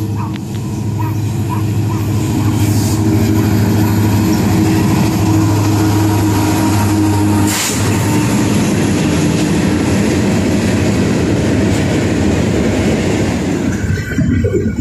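Diesel locomotive of a freight train passing close, its engine running with a steady low drone. About halfway through, the drone gives way to the rumble and rattle of empty steel gondola cars rolling by on the rails.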